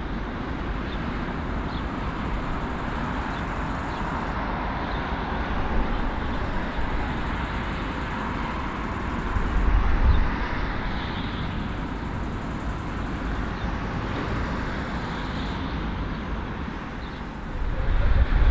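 Jet engines of a four-engine Airbus A340 airliner at taxi power, heard across an airfield as a steady whine and rush. A deeper rumble swells briefly about halfway through and again near the end.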